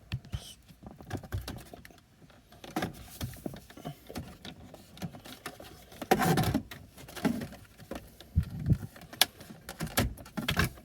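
Plastic interior trim of a car being worked loose by hand: scattered clicks, knocks and rattles as a retaining clip is pushed and the piece pulled, with a louder burst of handling noise about six seconds in.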